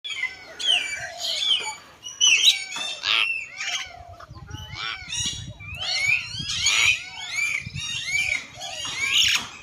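Several birds calling at once: a dense run of overlapping whistles, chirps and squawks that sweep up and down in pitch.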